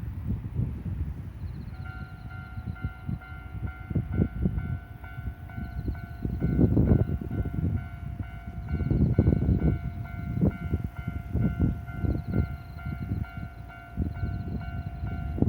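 Electronic warning bell of a Japanese third-class railway crossing, which has no barrier, starting to ring about two seconds in and ringing on as a train approaches. Gusts of wind rumble on the microphone throughout.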